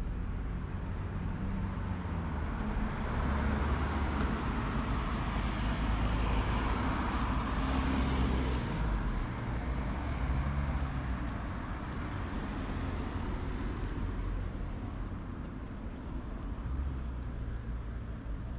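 A car passing on the street: its tyre and engine noise swells, peaks about seven to nine seconds in, then fades away. Under it runs a low rumble of wind on the microphone.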